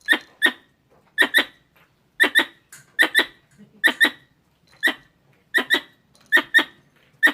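Wild squirrel calling: short, sharp squeaky chirps, mostly in quick pairs, repeating about once a second.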